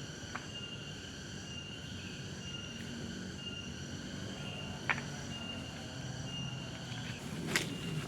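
A chorus of forest insects keeps up steady shrill tones, the lowest of them pulsing on and off. A few sharp snaps or clicks sound about half a second in, near the middle and near the end.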